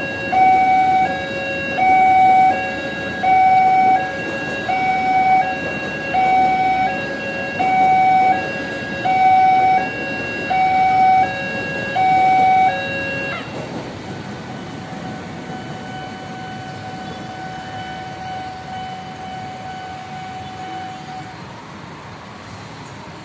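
Railway level-crossing warning alarm sounding a loud, alternating high and low tone, about one pair every second and a half. It cuts off about 13 seconds in as the barriers lift. Road traffic carries on under a fainter steady tone.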